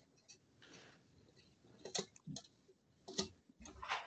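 A few faint, short clicks and ticks, scattered irregularly, the clearest about two, three and four seconds in.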